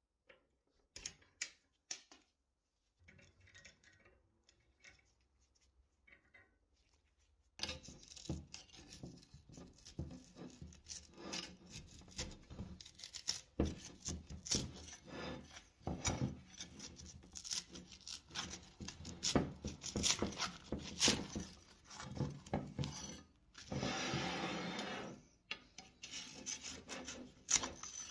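A blade scraping along the rusty edge of an antique scale's rubber-covered weighing platform: a few light clicks at first, then a dense run of short scraping strokes from about seven seconds in, with one longer, steadier scrape near the end.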